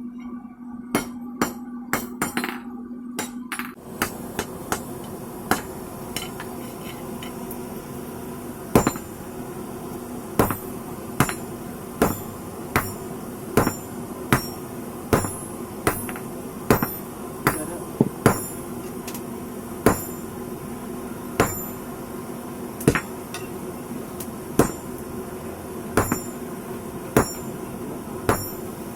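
Hand hammer forging steel rebar on an anvil: a few quick blows, then a steady beat of strikes a little more than one a second, each with a short metallic ring.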